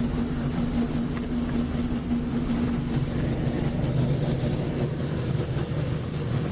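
John Deere 6620 combine's diesel engine running steadily, with a steady hum over it that drops away about five seconds in and a constant high hiss.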